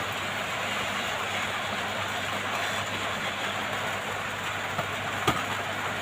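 Steady blowing hiss of a hot-air rework station heating a phone display to loosen it, with a low hum underneath and one sharp click about five seconds in.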